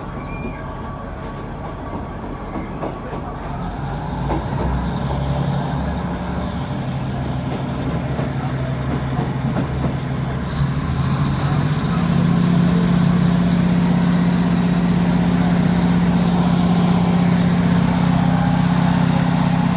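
Class 156 Super Sprinter's underfloor Cummins diesel engine working under power as the train gathers speed, heard from inside the carriage with wheel and rail noise. The hum grows steadily louder, and about twelve seconds in the engine note steps up and then holds loud and steady.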